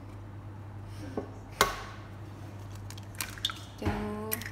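An egg being cracked into a stainless steel bowl of milk: one sharp knock of the shell about a second and a half in, then a few light clicks as the shell is pulled apart and the egg drops in. A low steady hum runs underneath.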